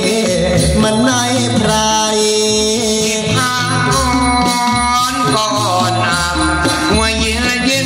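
A voice singing a drawn-out, wavering melody in the Thai sermon style over instrumental music with a steady low beat.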